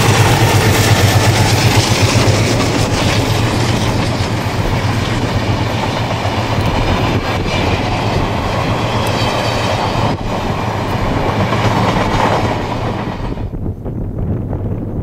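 Southern Aurora stainless-steel passenger carriages rolling past at speed, their wheels clattering over the rail joints, with the low drone of the diesel locomotives at the head of the train. About thirteen seconds in the train sound cuts off to wind noise.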